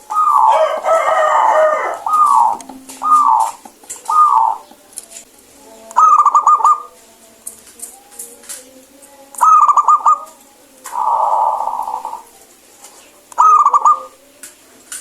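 Zebra dove (perkutut) cooing repeatedly. It gives a few short arched coos early on, then bursts of rapid stuttering coos, one roughly every three to four seconds.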